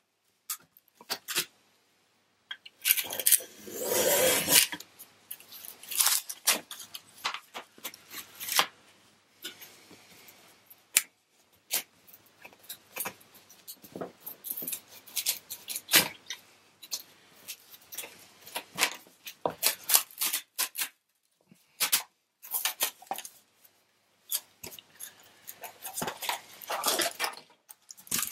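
Cured fiberglass-and-balsa laminate being peeled and prised off a waxed glass plate with a knife blade: irregular clicks, scrapes and crackles, with a longer tearing sound about three seconds in and another run of scraping near the end.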